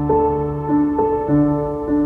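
Background music: a soft piano or electric-piano melody, notes changing about every half second.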